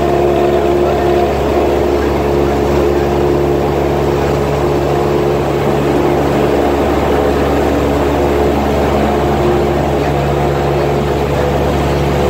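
Single-engine propeller airplane's piston engine and propeller running steadily at high power during the takeoff roll and lift-off, heard from inside the cabin.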